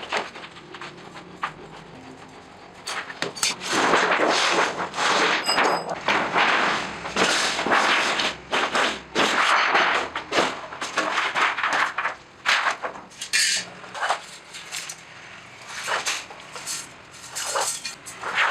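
Sheet steel being struck and clanged in metalworking: a rapid, irregular run of loud metal impacts through the middle, then scattered single strikes.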